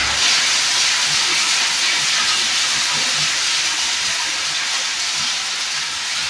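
Plastic lumps grinder running with a steady hissing rush, easing off slightly near the end, with no distinct crushing knocks.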